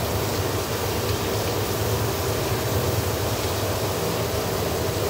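Steady hum of an automatic khanom jeen (Thai fermented rice noodle) making machine's motor running, with an even hiss over it.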